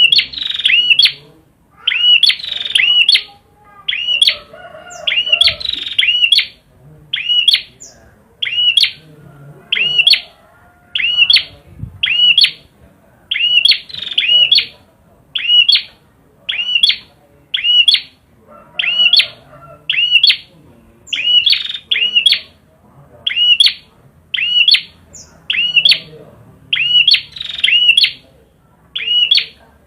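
A prinia (Indonesian prenjak) in full song, repeating the same short phrase of a few high, arching chirps about once a second over and over.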